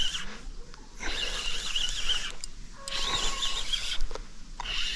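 Spinning reel being cranked in short bursts of about a second each, winding in line with a hooked zander on the end.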